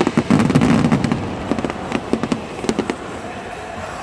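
Aerial fireworks bursting overhead: a dense run of sharp crackles and pops that thins out and dies away by about three seconds in.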